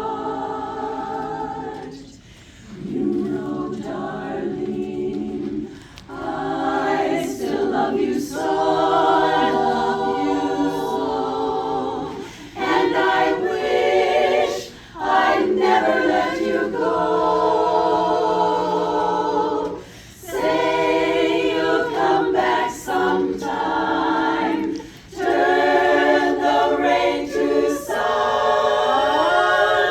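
A cappella group of voices singing, in phrases a few seconds long with short breaks between them.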